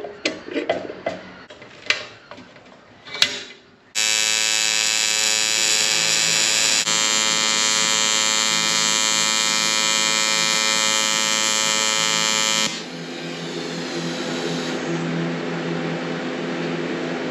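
Metal parts being handled, with scattered clicks and knocks, then a loud, steady electric buzz with a rich tone that starts suddenly about four seconds in. After about nine seconds it drops to a quieter, rougher running sound.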